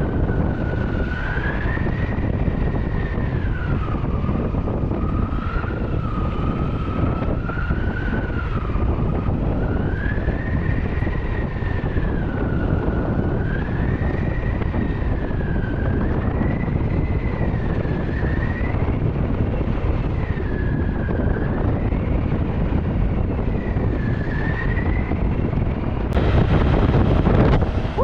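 Motorcycle riding at road speed: a steady rush of wind and engine noise, with a thin whine that wavers slowly and unevenly up and down. Near the end the rush grows louder and hissier.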